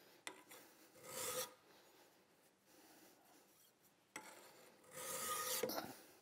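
Flat hand file rasping across the metal grip frame of a Ruger single-action revolver: two slow strokes about four seconds apart, each with a light click just before it. The filing takes the fitted backstrap and trigger guard down flush with the revolver frame.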